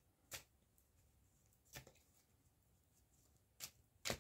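Near silence broken by four brief soft snaps of tarot cards being handled, a second or two apart, the last two close together near the end.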